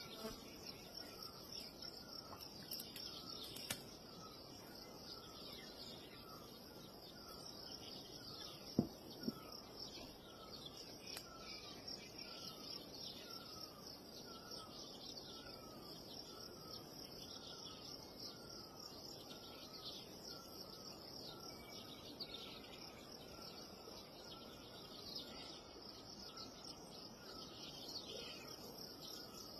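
Faint outdoor ambience: insects chirring steadily and a bird repeating a short falling call about three times every two seconds. Two sharp clicks about nine seconds in, half a second apart.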